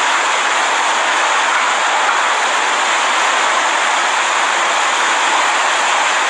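Hurricane-force wind blowing in a loud, steady rush without let-up.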